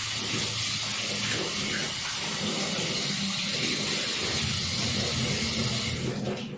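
Tap water running steadily into a sink over hands being rinsed of soap; the flow stops just before the end.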